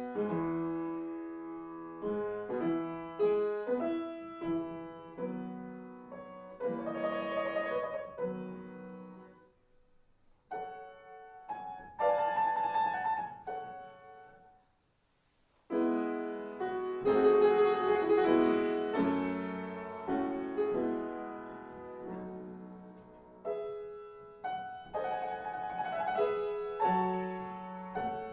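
Solo piano music played slowly, single notes and chords that ring and fade, broken by two short pauses near the middle.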